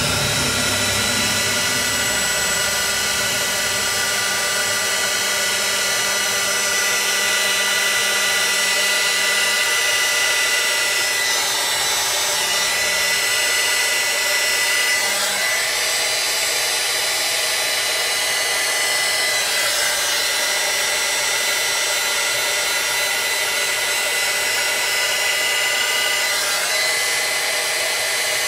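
Compact 300-watt craft heat gun running, its small fan giving a steady hiss with a high whine. The tone shifts slightly a few times.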